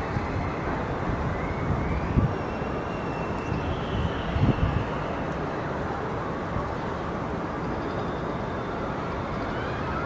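Wind blowing across the microphone: a steady rush of noise with stronger low buffeting gusts, the biggest about two seconds in and around four and a half seconds in.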